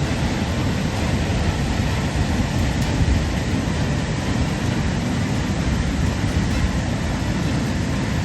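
Floodwater of a swollen stream rushing, a steady heavy rumble with no breaks.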